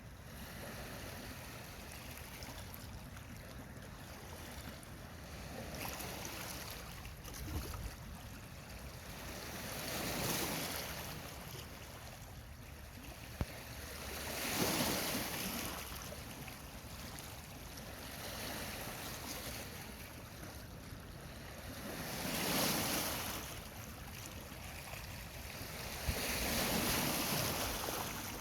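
Water washing and splashing in waves: a swell of splashing about every four seconds that builds and fades, over a steady rush of moving water, with a few faint clicks.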